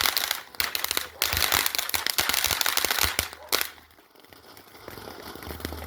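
A string of firecrackers going off in a fast, continuous run of bangs that stops about three and a half seconds in.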